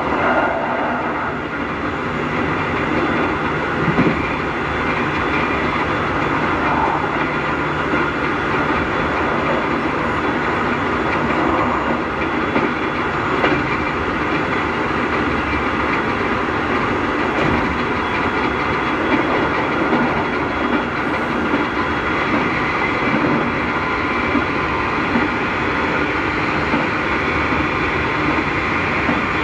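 Keikyu 1000-series electric train heard from inside a motor car, running steadily at speed. Its Mitsubishi IGBT-inverter traction motors give a steady, well-known loud motor noise over the rumble and clatter of the wheels on the rails.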